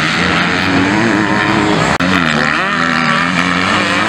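250 cc motocross bikes racing, engines revving up and down with several overlapping. The sound breaks off for an instant about halfway through and picks straight up again.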